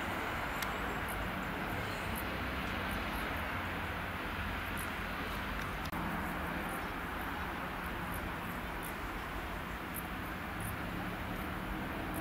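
Steady outdoor background noise, an even rush with a faint low hum underneath.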